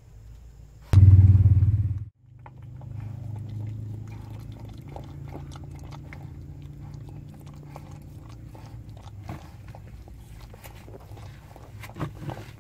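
Newborn puppies nursing at their mother: small wet smacking and clicking sounds over a steady low hum. The loudest part is a low hum about a second in that cuts off abruptly a second later.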